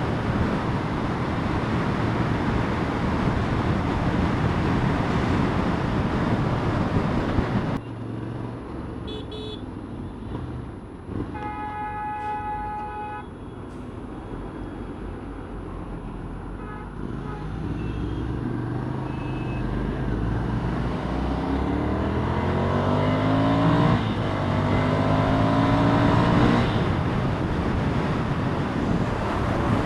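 Ducati Scrambler motorcycle on the move: heavy wind and engine noise that eases off about eight seconds in. A vehicle horn toots for about two seconds near the middle. Then the engine pitch rises twice, with a gear change between, as the bike accelerates.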